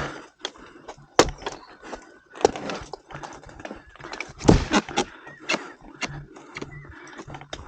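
A series of irregular sharp knocks and thuds, the loudest cluster a little past halfway.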